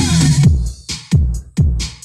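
Electronic dance remix with heavy bass played loud through a pair of plywood subwoofer boxes with 15-inch drivers. A held deep bass note gives way about half a second in to a run of deep kick-drum hits, about two a second, each dropping in pitch.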